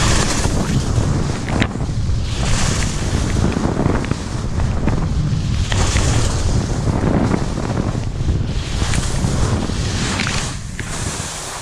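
Wind buffeting the microphone during a run down a snowy ski slope, with a scraping hiss of edges on the snow swelling about every three seconds as turns are made.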